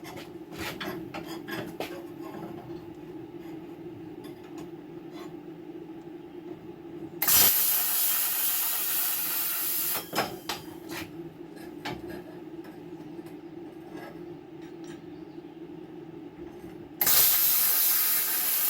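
Plasma cutter running with a steady hum; twice the cutting arc fires with a loud hiss lasting about three seconds, about seven seconds in and again near the end, as it cuts through a bracket. Small clicks and knocks come between the cuts.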